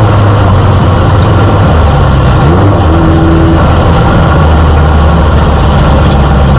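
Mini stock race car's engine heard from inside the cockpit, running loud at low revs, mostly steady with small dips and rises in pitch.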